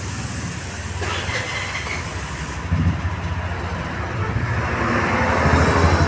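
A vehicle engine running with a rough, rumbling note, getting louder toward the end.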